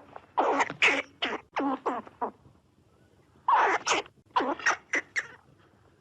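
Squirrel calls: two runs of short, rapid pitched barks, about seven and then about five, with a pause of about a second between them.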